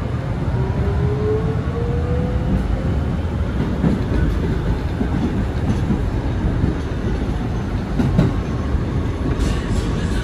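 2022 Kawasaki R211A subway train running on rails, with a steady low rumble of wheels on track. Its motor whine rises in pitch over the first couple of seconds as the train picks up speed, and there are a few clattering knocks from the track joints.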